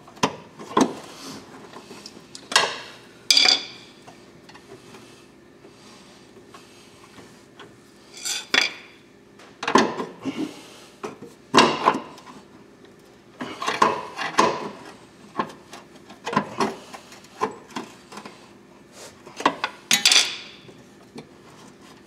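Irregular metallic clinks, clanks and scrapes of parts and tools as a bolt is worked into a toe adjuster arm on a car's rear suspension, some single and some in quick clusters.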